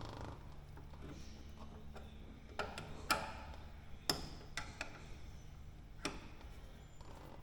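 Ratchet tie-down strap being worked, its ratchet clicking about half a dozen times at uneven intervals as it stretches an aircraft landing-gear bungee cord under heavy tension.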